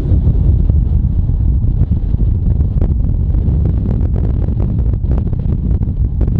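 Wind buffeting the microphone of a moving car, heard as a loud, steady low rumble over the car's road noise, with a few faint knocks.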